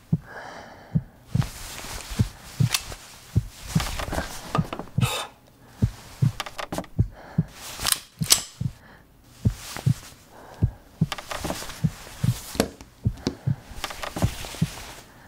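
Heartbeat sound effect: low thumps in pairs, a little over once a second, with small clicks and rustles of hands handling objects over it.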